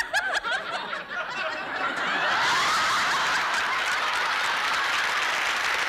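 A man chuckles briefly in the first second. About two seconds in, a studio audience breaks into laughter and applause that holds steady.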